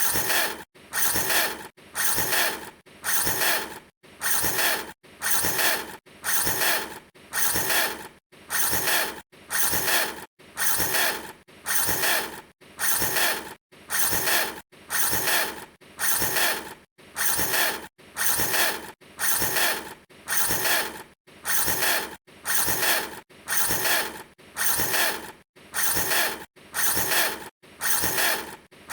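A short mechanical sound repeated evenly, about once a second, each burst stopping abruptly before the next.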